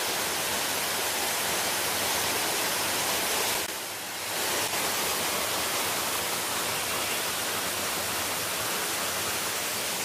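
Waterfall's steady rush of falling water, an even hiss, dipping briefly about four seconds in.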